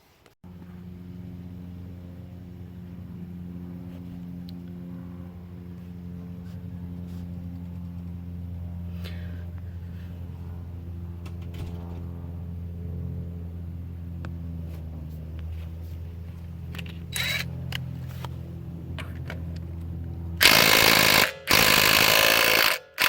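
DeWalt DCF880 20V cordless 1/2-inch impact wrench hammering in two loud bursts of about a second each near the end, over a steady low hum from a running motor or engine.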